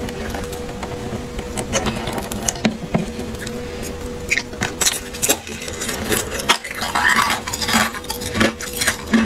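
Crinkling plastic cling film and small clicks as hands work a star-shaped block of ice wrapped in the film: a steady run of irregular crackles and ticks.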